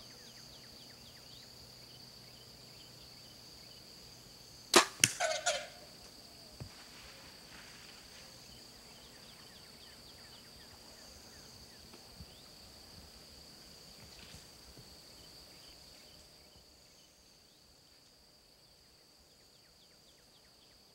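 A shot from a Martin bow at a wild hog, about five seconds in: one sharp snap of the released string, followed by a quick run of smaller clicks and rattles within about a second. Insects drone steadily in the background and fade out near the end.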